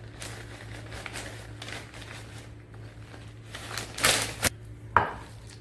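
Shredded mozzarella being added to a glass bowl of mayonnaise: soft rustling and light clicks, then a louder rustle about four seconds in and a sharp tap about a second later.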